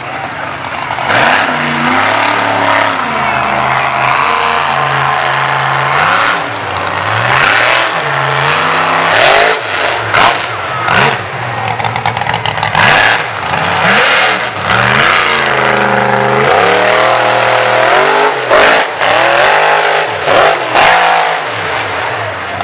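Mega truck's engine revving hard under load as it runs through a mud bog pit. The pitch climbs and drops again and again every few seconds, with short loud bursts of noise at intervals.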